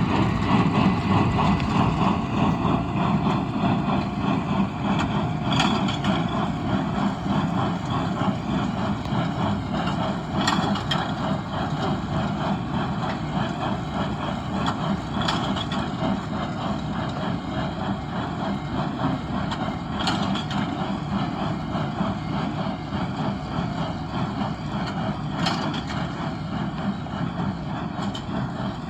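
Tractor engine running steadily while driving a Massey Ferguson 1840 small square baler, with a fast steady mechanical clatter and a sharp click about every five seconds.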